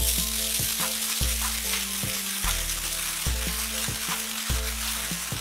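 Golden Lion fancy fountain firework spraying sparks with a steady hiss, over background music with a steady beat.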